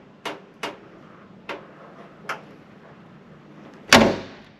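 A Volkswagen Thing's door being shut: one loud thud about four seconds in, after a few light knocks.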